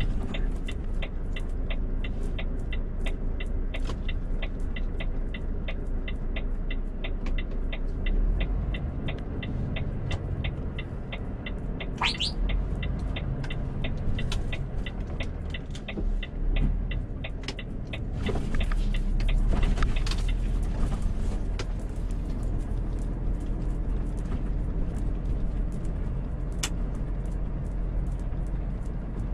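Volvo truck's diesel engine and road rumble heard from the cab while driving. A rapid, steady ticking runs at about three or four clicks a second through the first half and then stops.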